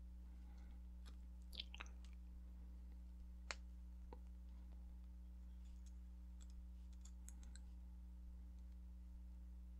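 Faint, scattered small clicks of steel round-nose pliers against nickel silver wire as the end of the wire is curled into a spiral, the sharpest about three and a half seconds in and a loose run of them later on, over a steady low hum.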